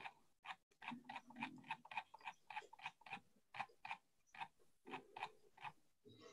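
Faint, evenly spaced clicking, about four clicks a second, from a computer as a document is paged rapidly through on screen.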